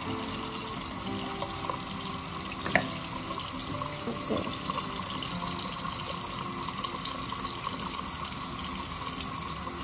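Water running steadily from a bathroom tap into the sink as hands wash under it, with one brief knock about three seconds in.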